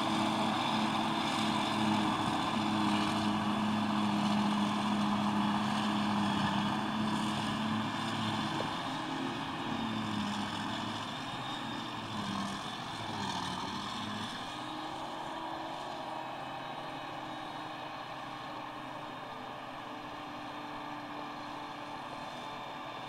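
Claas Jaguar 940 self-propelled forage harvester working under load, chopping grass and blowing it into a silage trailer, with the tractor alongside: a steady engine drone whose pitch wavers in the middle, growing fainter over the second half as the machines move away.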